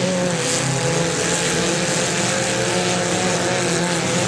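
Engines of several compact demolition-derby cars running together, a steady drone whose pitch wavers slightly, over a broad hiss.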